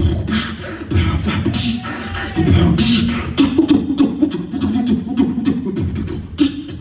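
Live human beatbox: rapid vocal drum hits, sharp clicks and snares over short hummed bass notes, in a steady rhythm.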